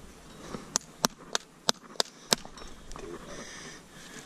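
Farrier's hammer tapping the clinched nail ends on a freshly nailed horseshoe on a mule's front hoof: six sharp taps, about three a second, then a pause.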